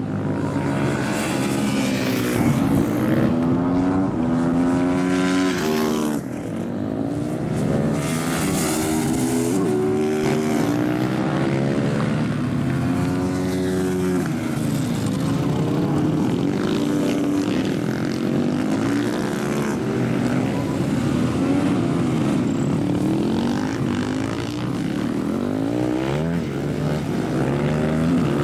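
Supermoto motorcycle engines revving up and dropping back again and again as the bikes brake into corners and accelerate out, with more than one bike heard at once.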